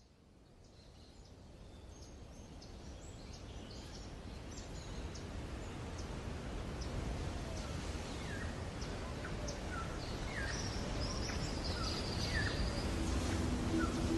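Small birds chirping in short, scattered calls over a steady outdoor background hiss, fading in from silence and growing steadily louder.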